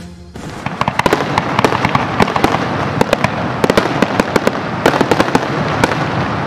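Fireworks display going off: a dense, continuous rumble of bursts with many sharp cracks and pops, starting about half a second in.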